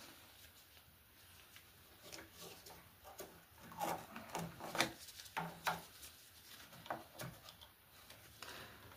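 Fittings being handled and fitted inside a toilet cistern as the flush lever is put onto a new siphon: faint, scattered clicks, knocks and rubbing.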